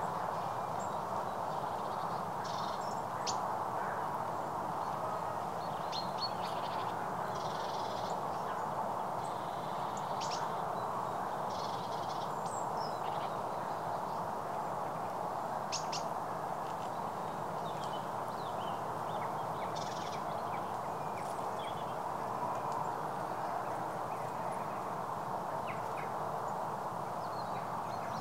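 Birds calling now and then, short calls and chirps scattered through, over a steady rushing background noise.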